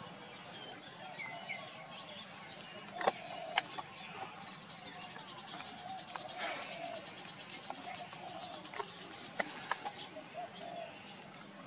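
High insect trill, a rapid, even pulsing that starts about four seconds in and stops about ten seconds in, over a faint outdoor background. A couple of sharp clicks come shortly before it.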